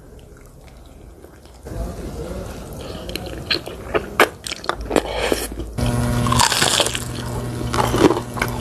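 A person eating: biting and chewing with scattered sharp crunches, the crunchier bites coming from fried fish near the end. A steady low hum comes in about six seconds in.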